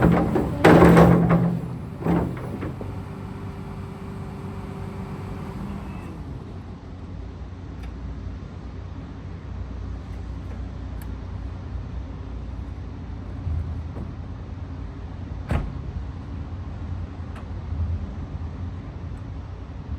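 Hyundai Robex 300 LC-9A excavator's diesel engine running with a steady low hum, with two loud surges in the first two seconds and a few sharp clicks later on.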